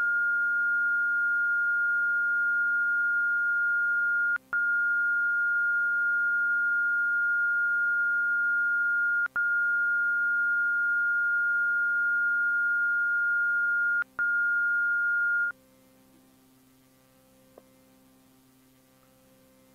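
Steady, high, single-pitch test tone sounding with television colour bars. It drops out briefly with a click three times, about every five seconds, then cuts off about fifteen and a half seconds in, leaving near silence.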